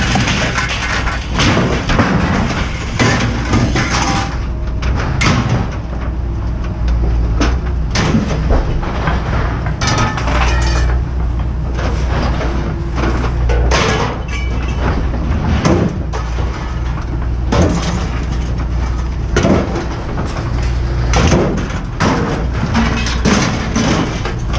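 Scrap metal clanking and banging at irregular intervals as pieces are thrown from a pickup bed into a metal scrap bin, over a steady low machinery rumble.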